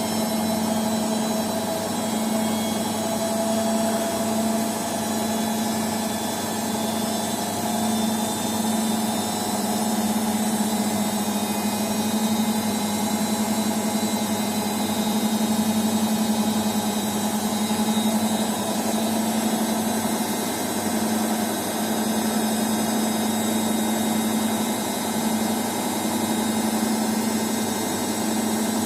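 Washing machine running with a steady motor hum that swells and eases slightly.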